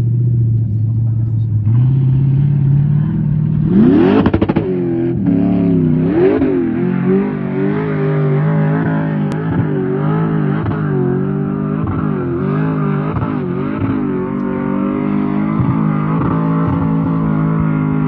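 SUV engine revving hard under load as it climbs a steep sand dune. The pitch rises sharply about four seconds in, then swings up and down repeatedly as the throttle is worked.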